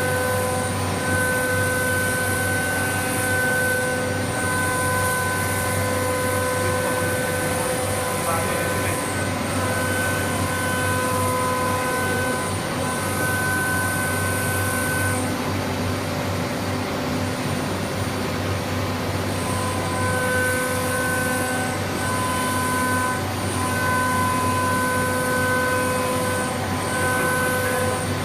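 CNC nesting machining centre running while its router spindle machines a furniture panel. A steady, loud machine noise carries a whine at several pitches that drops out and comes back, and it is missing for a few seconds about halfway through.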